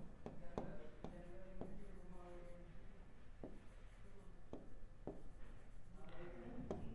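Pen strokes and taps on an interactive smart board screen as a word is handwritten: a faint, irregular series of short taps and scratches.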